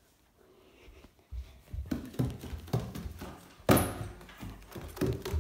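Bare footsteps on a wooden floor in a small room, a run of uneven thuds and knocks mixed with the rumble and rub of a handheld phone. They start about a second in, and the loudest thump comes about two-thirds of the way through.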